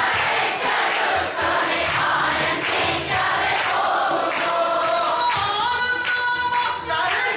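Devotional hymn sung by a chorus of voices with a man's voice leading, in long held notes.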